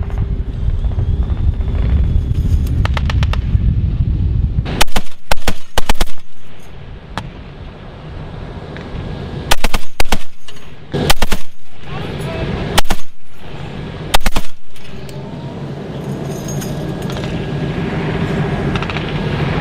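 A 12.7 × 99 mm (.50 calibre) heavy machine gun on a remote weapon station firing five short bursts. The first burst is about five seconds in and the last about fifteen seconds in, all over a low steady rumble.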